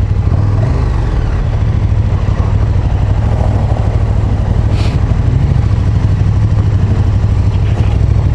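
Motorcycle engine running steadily at low speed, a constant low drone heard from the rider's seat.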